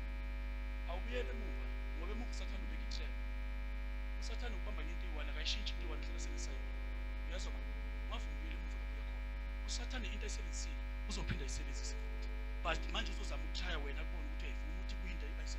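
Steady low electrical mains hum, with faint, scattered small sounds and distant voice fragments over it.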